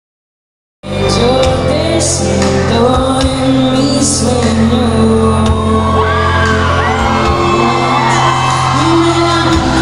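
A live pop band plays loud through the concert sound system, recorded from the crowd, starting suddenly about a second in, with heavy bass under a sung melody and occasional whoops.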